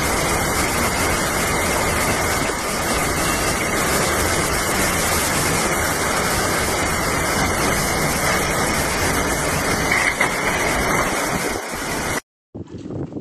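Heavy storm rain and strong wind, a loud, dense, steady rush. It cuts off suddenly near the end and gives way to fainter wind buffeting the microphone.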